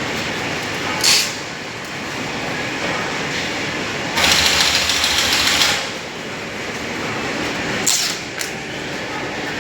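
Workshop machinery running steadily, with a short hissing burst about a second in, a louder rush of noise lasting about a second and a half near the middle, and another short burst followed by a click near the end.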